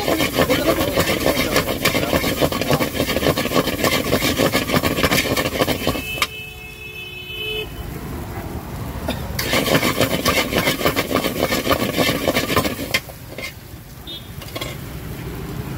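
Metal spatula rapidly scraping and chopping scrambled eggs against a metal pan, a dense clatter. It breaks off for about three seconds, six seconds in, and eases off again near the end.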